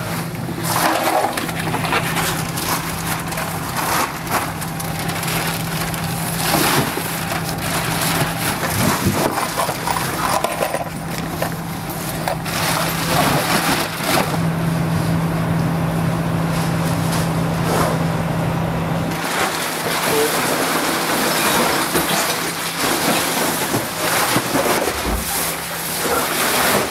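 Trash being bagged: black plastic garbage bags rustling and crinkling, with debris tipped and crushed into them in irregular clattering bursts. A steady low hum runs beneath and drops away about two-thirds of the way through.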